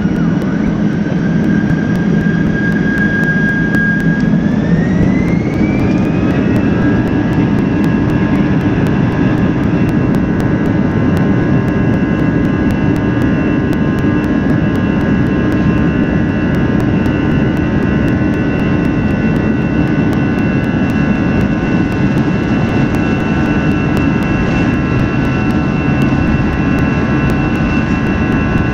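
Airbus A320-200's jet engines spooling up to takeoff power, heard from the cabin over the wing: a whine rises in pitch about four to six seconds in, then holds steady over a heavy rumble as the airliner accelerates down the runway.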